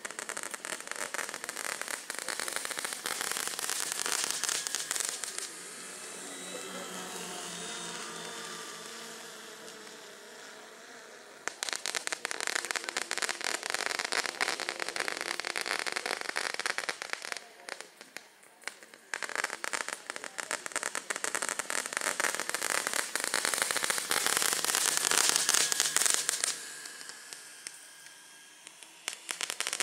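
Crackling pyrotechnics on a flying radio-controlled Transall C-160 model: a dense fireworks crackle that dies away and starts up again several times. In the gaps, about six seconds in and again near the end, it gives way to quieter steady tones.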